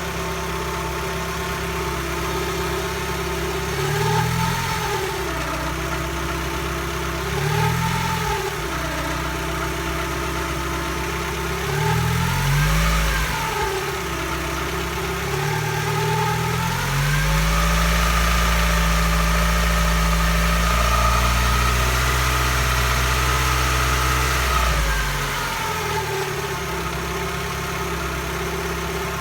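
Mazdaspeed Protegé's turbocharged four-cylinder engine idling and blipped three times, then held at higher revs for about eight seconds before dropping back to idle. A whine rises and falls with engine speed, a noise that appeared after a rebuild.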